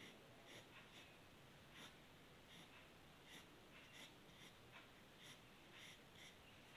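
Faint scratching of a pencil shading on drawing paper: short, irregular strokes a little under two a second.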